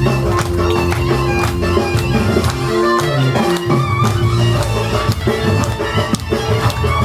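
Folk music with a long-held melody line over a steady, regular drum beat.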